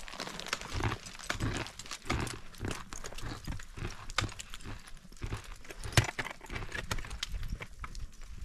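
Irregular knocks, clicks and scrapes, with one sharp knock about six seconds in.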